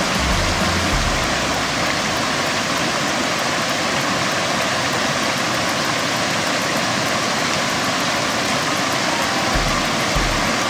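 Shallow mountain creek running over rocks, a steady loud rush of water.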